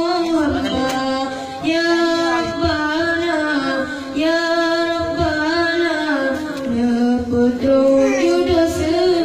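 A single high voice singing an unaccompanied-sounding melodic line in long held, ornamented phrases, with short breaths between them.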